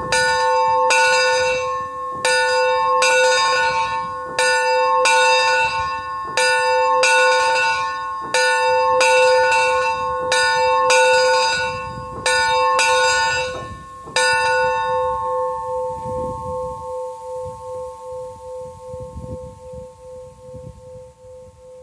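Brass steam-locomotive bell ringing with a steady swing, a strike about every two-thirds of a second. About 14 seconds in the strikes stop and the bell hums on, fading with a slow pulsing wobble.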